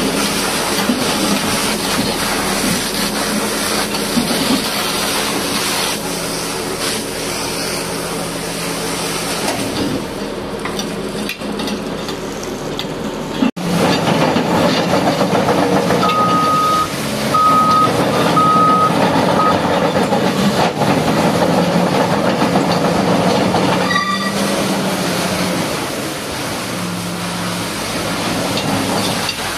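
A heavy-equipment diesel engine running steadily under the hiss of a high-pressure water spray. About halfway through the sound cuts out for an instant, and a few short high beeps follow soon after.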